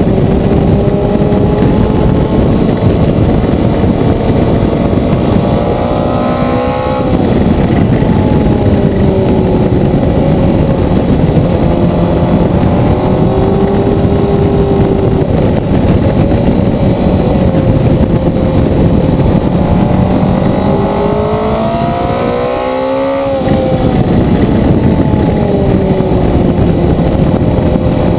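Motorcycle engine running under load on the road, its pitch rising and easing with the throttle. Twice it climbs and then drops sharply, as on an upshift: about seven seconds in and again about three-quarters of the way through. A steady rush of wind noise runs under it.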